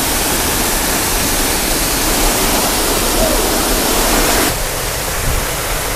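Waterfall rushing with a steady noise of falling water; the lower part of the sound drops off about four and a half seconds in.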